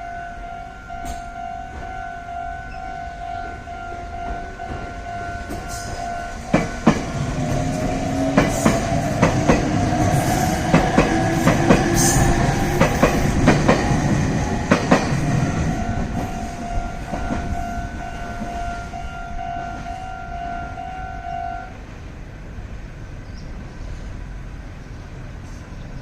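Japanese railway level-crossing alarm ringing with a steady pulsing tone while a Meitetsu train passes through the station crossing, its wheels clacking over the rail joints. The train noise builds and fades over about ten seconds, and the alarm stops about 22 seconds in.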